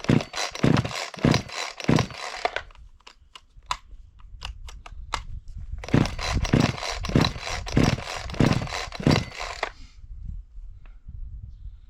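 Chainsaw starter cord pulled repeatedly on a cold engine: about four quick pulls, a pause of a few seconds, then about six more. The engine does not catch.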